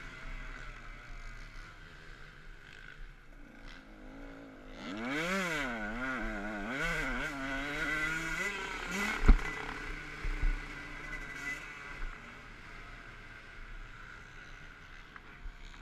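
Dirt bike engine revving up and down in quick swings as the rider works the throttle around the middle. Two sharp knocks a little after nine seconds and about a second later are the loudest sounds.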